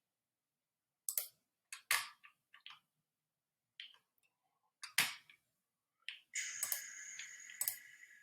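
Computer mouse clicking several times at uneven intervals. About six seconds in, a steady high whine starts and carries on under further clicks.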